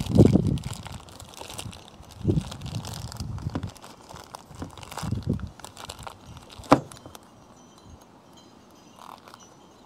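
Clear plastic bag crinkling as it is wrapped and twisted shut around solar cable connectors. There are a few dull low thumps, the loudest right at the start, and a sharp click about seven seconds in.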